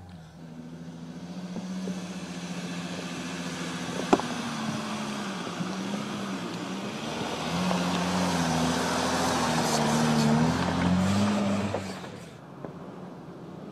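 Mercedes-Benz G-Class off-roader's engine working under load as it climbs, its pitch rising and falling with the throttle and growing louder as it comes closer, then dropping away near the end. A single sharp knock about four seconds in.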